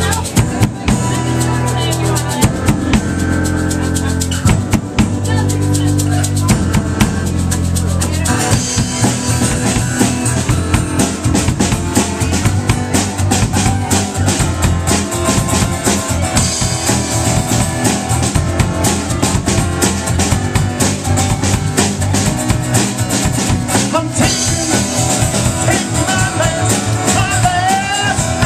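A live band playing an instrumental passage with acoustic guitar, drum kit and keyboard. The cymbals and fuller drumming come in about eight seconds in.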